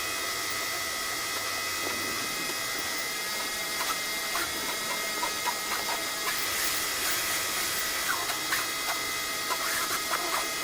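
Greenworks pressure washer running steadily, a motor whine over the hiss of water spray, as the rotary surface cleaner works across concrete. Small irregular ticks come through the hiss.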